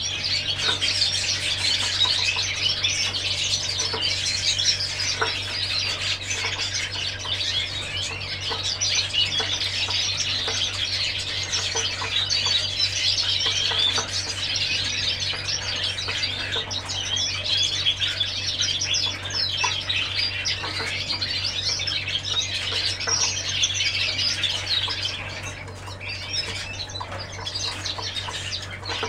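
Canaries singing: a dense, continuous stream of high twittering chirps and trills that eases off briefly a few seconds before the end, with occasional wing flutters as a bird hops between cage perches. A steady low hum runs underneath.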